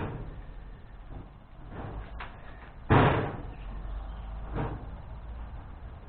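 Two loud bangs about three seconds apart, the first right at the start, with lighter knocks and clatter between and after them.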